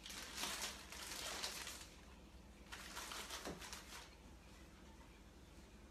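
Plastic tortilla bag crinkling and rustling in two stretches as a flour tortilla is pulled out of the package.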